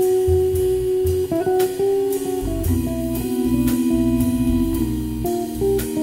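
Jazz trio playing live: archtop electric guitar, Hammond organ and drum kit. Chords are held for seconds at a time over deep bass notes that change about twice a second, with repeated sharp cymbal-like strikes.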